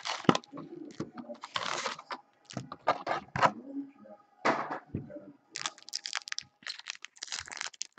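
Foil-wrapped Upper Deck Ice hockey card packs crinkling and rustling in irregular bursts as they are pulled from their cardboard box and stacked, with short light taps as packs are set down on the table.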